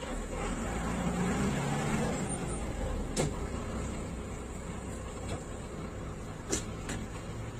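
City bus engine running, heard from inside the passenger cabin as a steady low rumble that swells for a couple of seconds near the start. Sharp knocks or rattles from the bus body come about three seconds in and twice near the end.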